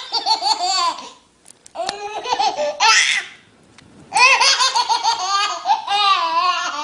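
A baby laughing hard in three long bouts of high-pitched laughter, with short pauses between them.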